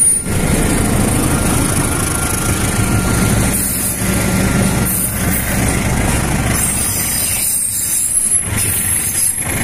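CC 206 diesel-electric locomotive engine running under power as it hauls a passenger train past and away, its exhaust smoking, followed by the steady rumble of the coaches rolling over the rails.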